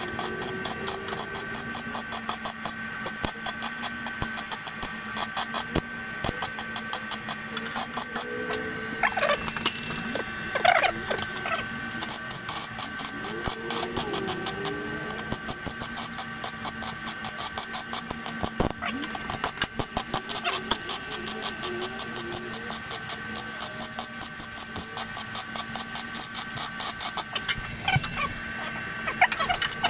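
Arc welding on a truck's front frame: crackling pulses of the arc, several a second, over a steady electrical hum.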